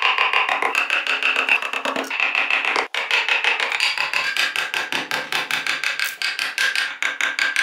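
Background music with a quick, even pulse and held notes that change every second or so; it drops out for an instant about three seconds in.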